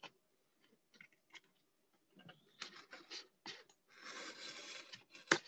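Craft knife scoring foam core board. A few faint clicks come first, then short scratching strokes, and about four seconds in a steadier scrape as the blade is drawn through the board, ending in a sharp click.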